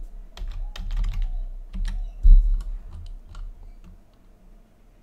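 Typing on a computer keyboard: a quick, irregular run of keystrokes, several with a dull thud. The loudest thud comes a little over two seconds in, and the keystrokes thin out near the end.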